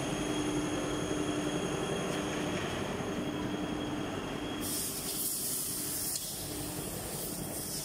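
Steady factory machinery noise with a low hum and a faint steady tone; about five seconds in, a high hiss suddenly joins it.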